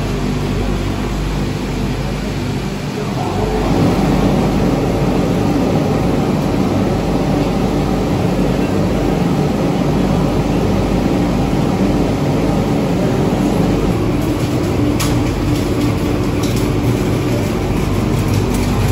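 Olive oil mill machinery running steadily, with a constant low hum; it grows louder about three seconds in. A few sharp rattles near the end as olives are tipped from a sack into the steel hopper.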